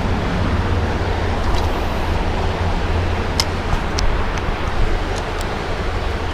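Steady rushing of a rain-swollen creek's current, with a few faint short clicks or chirps scattered through the middle.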